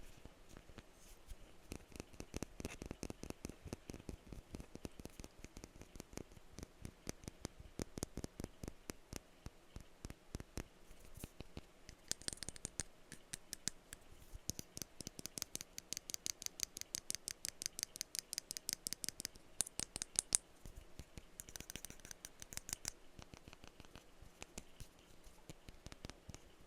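Rapid tapping on perfume bottles, a steady run of small sharp taps, several a second. Through the middle stretch, and again briefly a little later, the taps take on a brighter, ringing tone.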